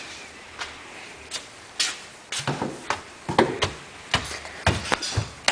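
Irregular knocks and clicks with no steady sound under them, the louder ones about three and a half and five seconds in.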